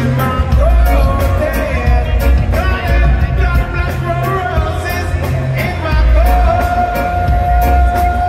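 Live reggae band playing, with a male singer singing into a microphone over heavy bass and drums. He holds a long note from about six seconds in.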